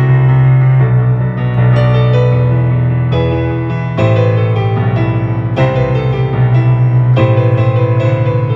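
Digital piano played solo: a chordal accompaniment over a steady bass line, the bass note shifting about every second and a half.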